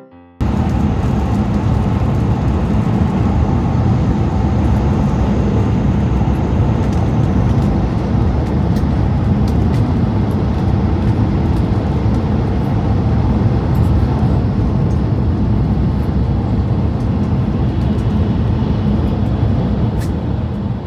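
Shinkansen bullet train running at high speed, heard on board: a loud, steady rumble of running and wind noise with a few faint clicks, starting abruptly about half a second in.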